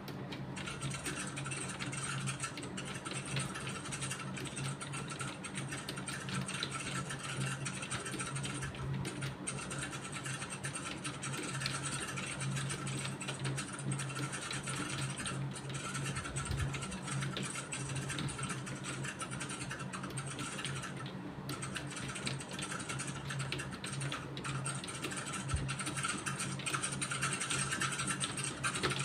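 Continuous typing on a computer keyboard: a quick, even stream of keystrokes with a couple of short pauses, over a low steady hum.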